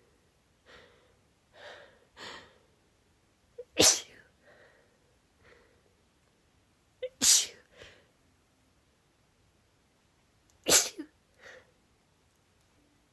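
A woman sneezing three times, a few seconds apart. Each sharp sneeze comes right after a quick catch of breath, with softer breaths between the sneezes.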